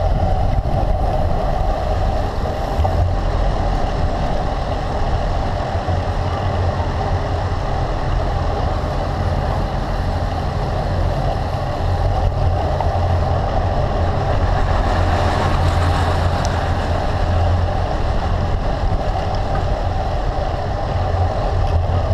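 Steady wind rush and road rumble picked up by a handlebar-mounted camera on a road bike rolling along a paved street.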